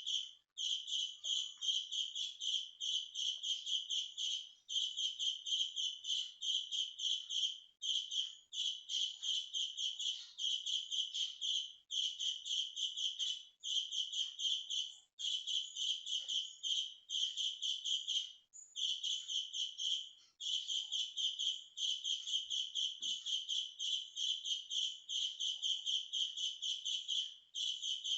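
Birds chirping loudly in fast, continuous runs of high, evenly repeated notes, with short breaks every second or two.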